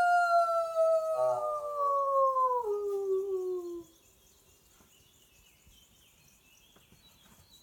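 A woman's imitation wolf howl through cupped hands: one long held note that slides down in pitch and breaks off about four seconds in, followed by near silence. It is a call meant to draw an answer from wild wolves, and by her own account it is pitched like a wolf pup or a young female.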